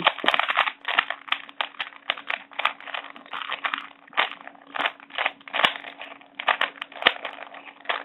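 A 3x3 Rubik's cube having its layers turned quickly through the counterclockwise corner-twisting algorithm: a fast, irregular run of plastic clicks and clacks.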